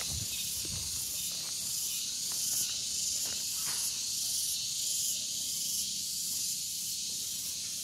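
Steady high-pitched chorus of insects in tropical village gardens, with a faint regular pulsing. A few soft footsteps on a dirt path in the first couple of seconds.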